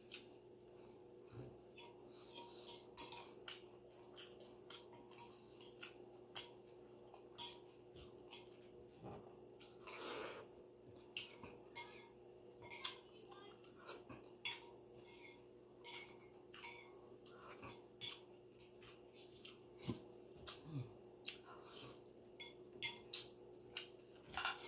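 A metal spoon clinking and scraping against a ceramic bowl in many short, irregular clicks, with one longer, noisier sound about ten seconds in.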